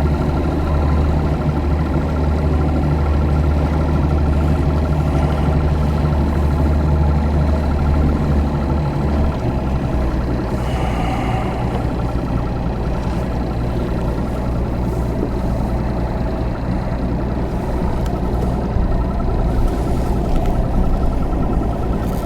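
Motor engine running steadily under way; its low drone shifts to a lower, steadier note about ten seconds in as the revs change.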